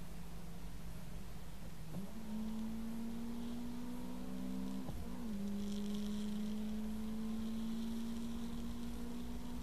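A motor running with a steady low hum that steps up in pitch about 2 s in, dips sharply and recovers about 5 s in, then holds steady.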